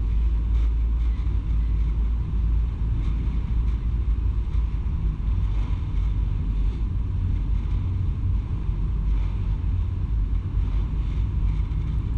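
Passenger ferry under way, heard from its open stern deck: a steady low rumble of the vessel's engines mixed with wind on the microphone and the wash of the churning wake.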